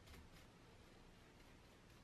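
Faint swishing of a paintbrush's bristles spreading wood stain over a wooden plate, a few soft strokes, the clearest just after the start, over near-silent room tone.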